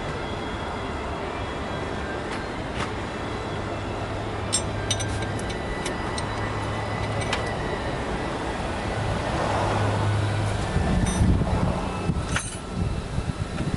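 Steady vehicle or traffic rumble with a low hum through the middle, and a scatter of sharp metallic clicks and clinks, a handful about four to seven seconds in and more near the end, with heavier low rumbling bursts near the end.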